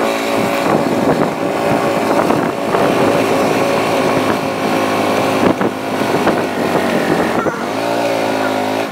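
Motorcycle engine running under way, a steady drone whose pitch rises and falls near the end as the throttle changes.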